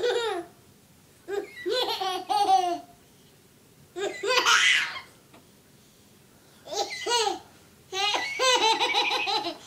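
A baby laughing in five bursts of quick, high-pitched laughs, with pauses of about a second between them.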